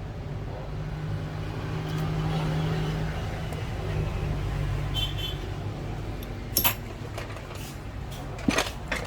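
A steady low engine-like rumble that swells about two seconds in, with two sharp clicks later on.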